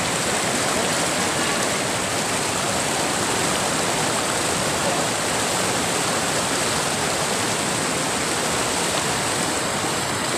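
Mountain river rapids rushing over and around boulders: a steady, unbroken wash of white water.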